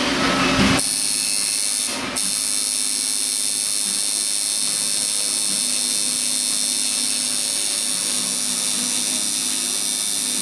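Electric tattoo machine buzzing steadily as it works on skin. It starts about a second in and breaks off briefly near two seconds before running on.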